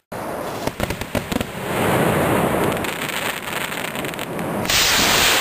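Black-powder firework rockets launching: scattered clicks and crackling sparks, then a steady rushing hiss, with a louder, sharper hiss in the last moment.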